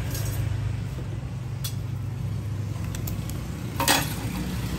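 Steady low rumble of road traffic, with a few light clicks of metal tools being handled; the loudest clink comes about four seconds in.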